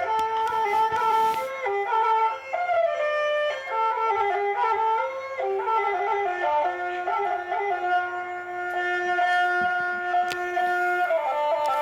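Music: a flute plays a slow melody in stepping notes, holding one long note in the middle.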